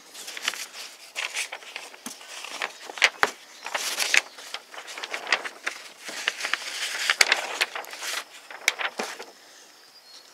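Paper rustling and crackling in irregular bursts as a folded instruction leaflet is handled and opened out, with a couple of light knocks.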